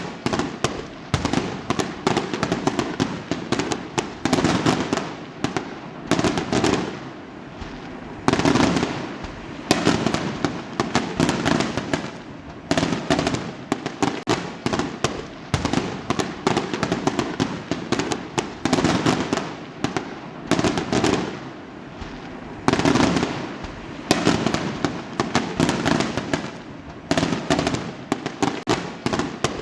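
Fireworks going off in a dense, continuous barrage: a steady stream of sharp bangs and crackling, with louder clusters of bursts every second or two.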